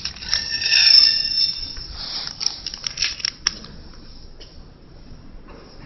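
Snack packing machine: a high, alarm-like ringing tone with several pitches at once lasts about the first two seconds, then a run of sharp clicks and taps, then a low steady background.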